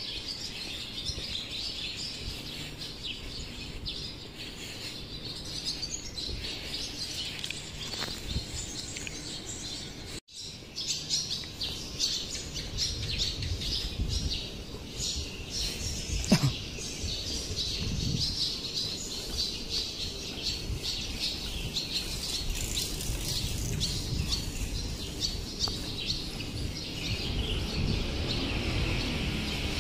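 Many small birds chirping in a busy chorus, with low thuds of footsteps and a hand-held phone being jostled underneath; the sound drops out for an instant about ten seconds in.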